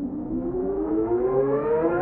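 A siren-like tone with several overtones, climbing steadily in pitch.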